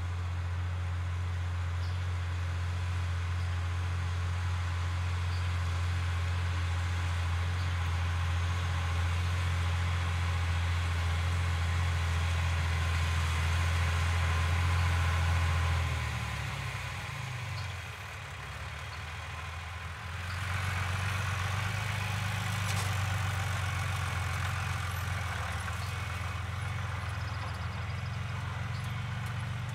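Farm tractor's diesel engine running steadily. About halfway through it drops away, falling in pitch. A few seconds later a different engine comes in abruptly.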